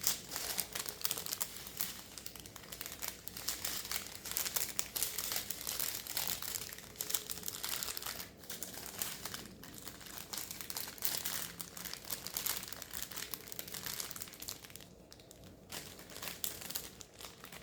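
Plastic packaging crinkling and rustling as it is handled, in a long run of quick crackles that eases off briefly near the end.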